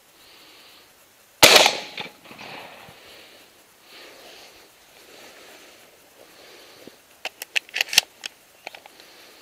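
A single shotgun blast at a passing pigeon, sharp and loud with a short echoing tail. About six seconds later comes a quick run of sharp mechanical clicks and clacks.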